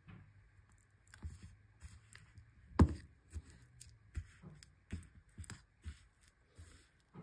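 Metal spoon stirring natural peanut butter in a glass jar, working the separated oil back in, with irregular scrapes and clinks against the glass and one sharper knock nearly three seconds in.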